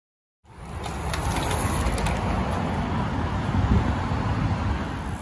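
Road bicycles passing on a tarmac path: tyre noise and light freewheel ticking under heavy wind rumble on the microphone. The sound starts abruptly about half a second in.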